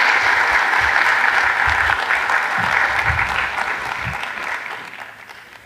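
Audience applauding at the end of a talk, a dense clapping that thins and fades out over the last second or two.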